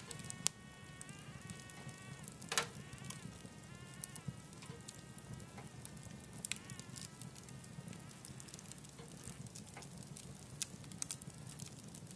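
Logs burning in a wood-burning stove, crackling with sharp irregular pops over a low steady rumble of the fire. A thin, wavering whistling whine from the burning wood comes and goes in long stretches of a few seconds each.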